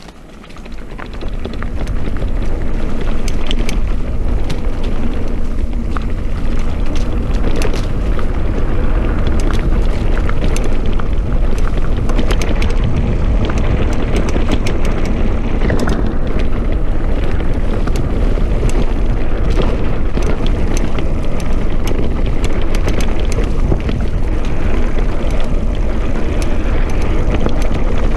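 Mountain bike ridden fast over a dirt trail: wind buffeting the microphone over the rumble of the tyres, with the bike rattling and clicking over bumps and roots. It grows louder over the first couple of seconds as speed picks up, then stays steady.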